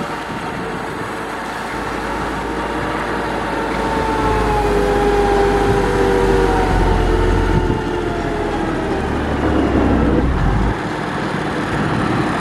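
Heavy road-construction machinery running, with an engine drone and a whine that slowly drifts down in pitch. A deep rumble grows about four seconds in and drops off suddenly near the end.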